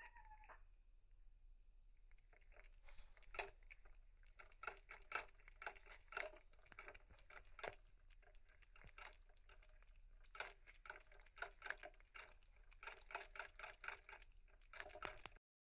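Faint, irregular soft clicks and rustles in loose clusters from a cat right up against the microphone.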